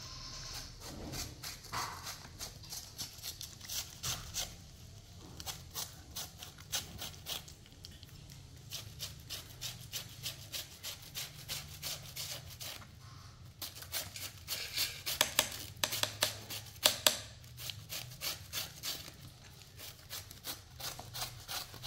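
Kitchen knife scraping and shaving a peeled vegetable into shreds, a long uneven run of quick scraping strokes that grows louder for a few seconds past the middle.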